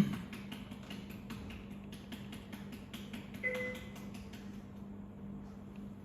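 Quiet NICU room ambience: a steady low hum, faint light taps and clicks, and one short electronic beep about three and a half seconds in.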